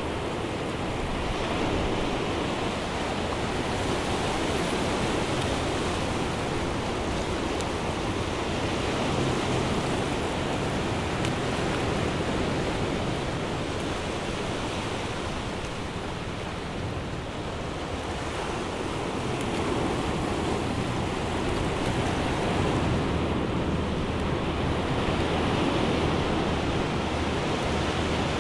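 Ocean surf breaking and washing over a rocky shoreline: a steady rush of noise that slowly swells and eases every several seconds.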